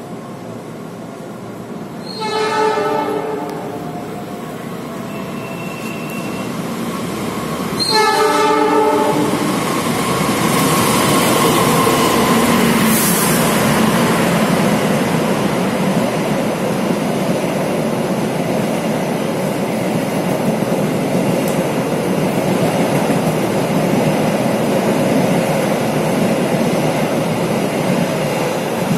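KRL electric commuter train sounds two short horn blasts about six seconds apart, then runs past close by with a loud, steady rumble of wheels and carriages, and a brief motor whine partway through.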